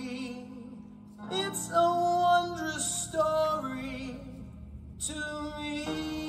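A Christmas song playing: a woman singing with instrumental accompaniment.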